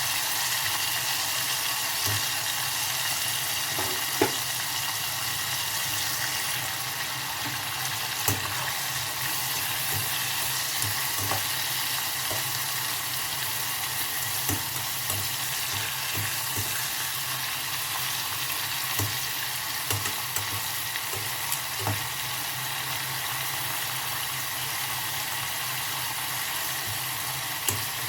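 Vegetables frying with a steady sizzle in a hot pan, with scattered sharp clicks of a utensil against the pan as they are stirred.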